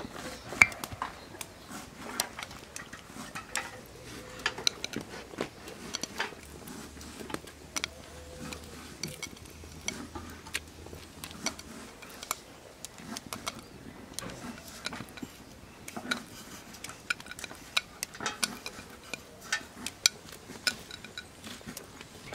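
Raw meatballs being dropped one at a time into a pot of water and chickpeas, with irregular light clinks of a spoon against the plate and the aluminium pot.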